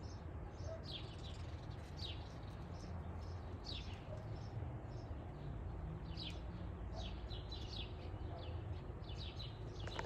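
Small birds chirping: many short, high, down-sliding chirps at irregular intervals, over a low steady rumble.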